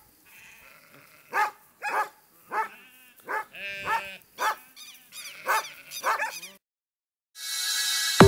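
A dog barking repeatedly, about twice a second, among sheep bleating. The calls stop about six and a half seconds in, and electronic music starts near the end.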